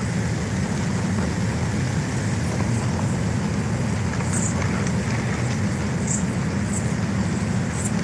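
Steady low rumbling outdoor noise, with four faint, short high-pitched chirps in the second half.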